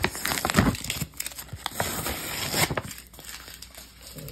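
Brown kraft-paper mailer envelope crinkling and rustling as it is handled and opened, with dense crackles and sharp clicks for about two and a half seconds before it goes quieter.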